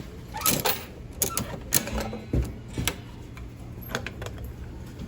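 Coin-operated prize machine running: a steady low motor hum with a string of irregular mechanical clicks and knocks as its mechanism works and a prize drops.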